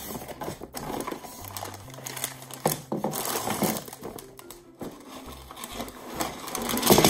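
Cardboard box flaps being pulled open and handled, with plastic bags of LEGO Duplo bricks crinkling and sliding inside. Near the end the bags and bricks tumble out onto a tabletop, the loudest moment.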